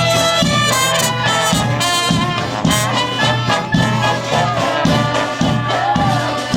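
Klezmer band playing a lively tune live: brass horns carrying the melody over a steady bass beat of about two pulses a second.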